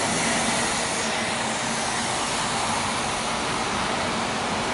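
Articulated city bus driving past close by: a steady rushing noise of the bus's engine and running gear.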